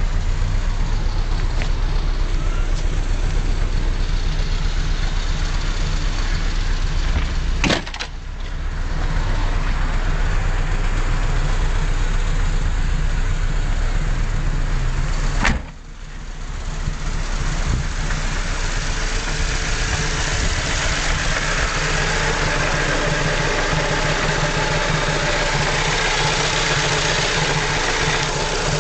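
Ford Zetec S's engine running steadily after it has spun a bearing shell. Two sharp clicks come about eight seconds apart, and the sound grows brighter in the second half.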